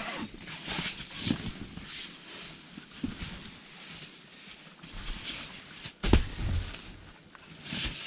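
Rustling and handling of dry bags and bedding in the doorway of a canvas tent, with a couple of soft thumps as gear is set down, the loudest about six seconds in.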